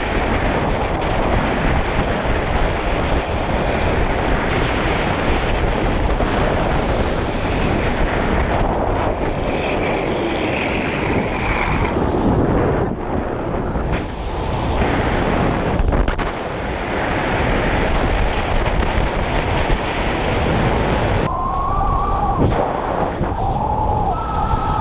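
Strong wind buffeting the microphone: a loud, steady rushing noise. A brief wavering pitched sound comes near the end.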